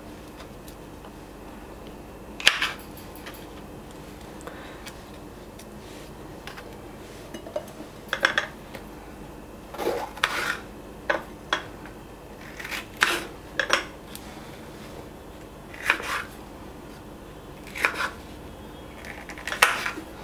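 Kitchen knife cutting bell peppers on a wooden cutting board: short, sharp knocks each time the blade strikes through to the board. One knock comes a couple of seconds in, then a pause, then knocks in small groups every second or two.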